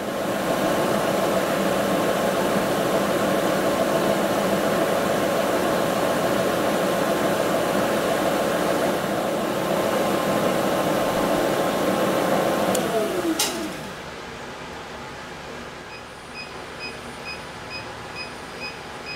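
Milling machine spindle motor running steadily, then a click about 13 seconds in and the motor winding down with a falling pitch. Near the end the mill's digital readout beeps repeatedly, about twice a second, the signal that the table is nearing the next hole position.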